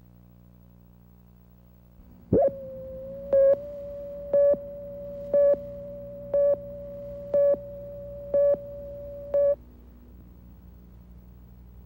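Videotape leader countdown tone: a steady mid-pitched tone starts about two seconds in, with a louder beep on it about once a second, eight in all. It then cuts off, leaving a low hum.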